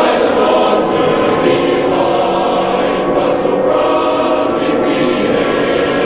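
Choral music: a choir singing long held chords at a steady level.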